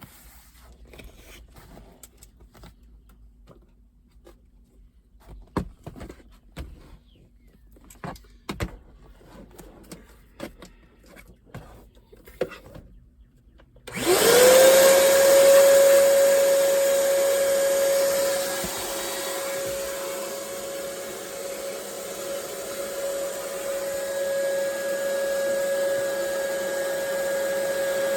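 Ridgid 3-gallon wet/dry shop vac switched on about halfway through, its motor spinning up with a quick rising whine and then running steadily with a constant whine over a rush of airflow. Before it starts there are only scattered light clicks and knocks of handling.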